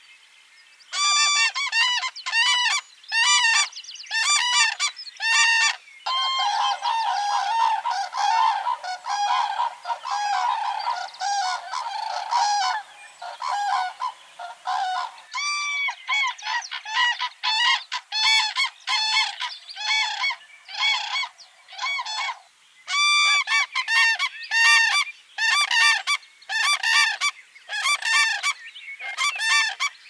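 Birds calling: a run of loud, repeated harsh calls, about two a second. From about six seconds in they thicken into a dense overlapping chorus of many birds, then single repeated calls return after about fifteen seconds.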